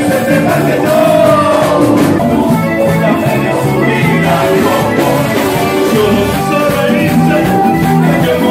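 Live cumbia band playing loudly, with a singer's voice over the band.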